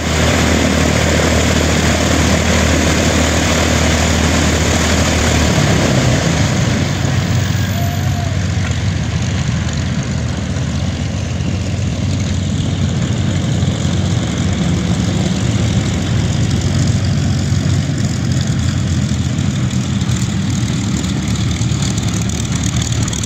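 Supermarine Spitfire's V12 piston engine idling on the ground, a steady loud propeller drone whose low hum shifts slightly about six seconds in.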